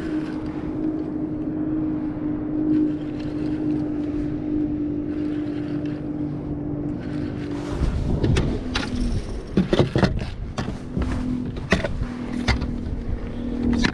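A boat motor hums steadily at one pitch, fades out a little past halfway and comes back slightly lower. A run of sharp clicks and knocks fills the second half.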